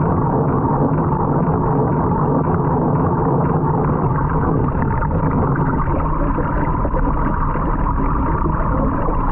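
Steady, loud churning and gurgling of water swirling in a vortex tank.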